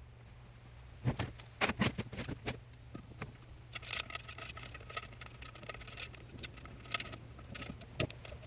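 Black plastic seal plate of a Waterway SMF pool pump being fitted against the motor face: a few sharp knocks and clacks about a second in, then a run of light rattling clicks from a hand tool at the mounting bolts, with single clicks near the end.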